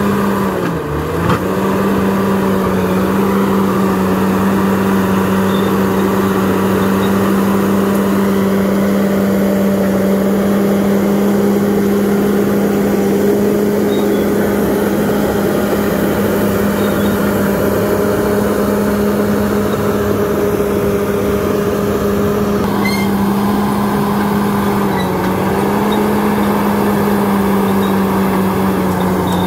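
Bulldozer's diesel engine running steadily at high revs, its pitch dipping briefly about a second in and again about 25 seconds in.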